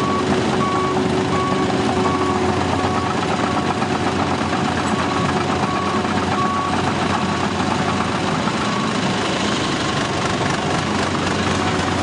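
John Deere W540 tracked combine harvester's engine running steadily as the combine reverses, its back-up alarm beeping a little faster than once a second; the beeping stops about seven seconds in while the engine runs on.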